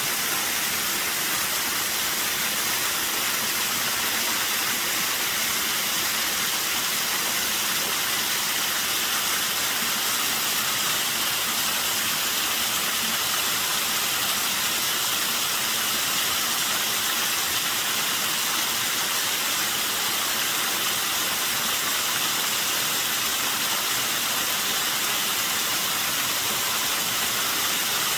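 A small waterfall with a slightly low flow of water falling and splashing, an even, steady hiss of water that stays the same throughout.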